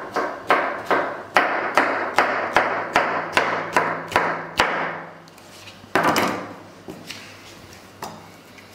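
Kitchen knife chopping a red chili pepper on a plastic cutting board: about a dozen quick, even cuts, roughly three a second, then a pause, one louder knock and a couple of fainter ones near the end.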